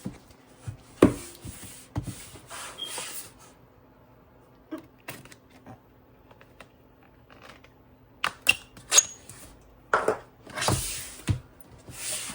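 Handling and unpacking a boxed PC component: scattered knocks and clicks with short bursts of packaging rustling, over a faint steady hum.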